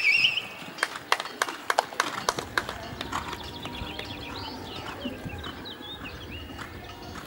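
A show-jumping horse's hoofbeats on a grass arena as it comes back from a canter to a trot, with a run of sharp knocks in the first couple of seconds. A short rising whistle-like call sounds at the very start, and some high wavering chirps come in the middle.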